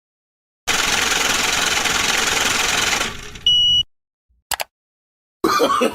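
A loud, harsh, even noise lasting about two and a half seconds, fading out, followed by a short high-pitched beep and a single click; a voice begins near the end.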